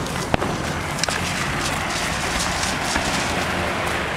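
Fireworks going off: a few sharp pops and crackles, the clearest about a third of a second and about a second in, over a steady noisy rumble.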